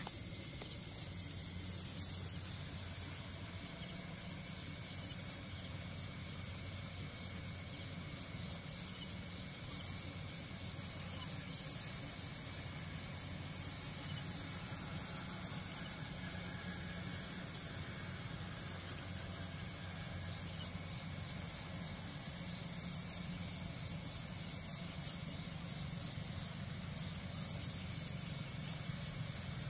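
Insects calling in a steady high-pitched chorus, with faint short calls repeating about once a second and a low steady hum beneath.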